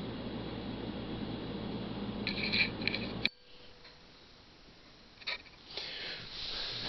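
Steady room noise with a few short, crisp rustles of handling paper and drafting tools about two to three seconds in. A little after that the sound drops abruptly to quieter room tone at an edit, with one small click and some faint rustling near the end.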